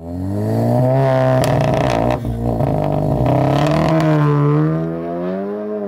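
Volkswagen Golf R Mk7's turbocharged 2.0-litre four-cylinder revving through its quad-tip Akrapovic exhaust, the pitch held, dropping and climbing again. A few sharp pops come between the revs.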